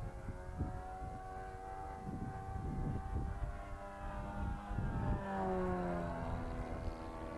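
Nitro-fuelled glow engine of a radio-controlled model airplane running steadily in flight, its pitch dropping as the plane passes close overhead about five seconds in. Wind rumbles on the microphone.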